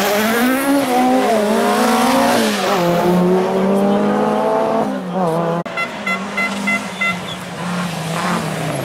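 Rally car engine revving hard as it accelerates away through the gears, its pitch climbing and dropping at each shift. About halfway through the sound cuts out for an instant. Another car's engine follows, lower, with a quick run of short high beeps.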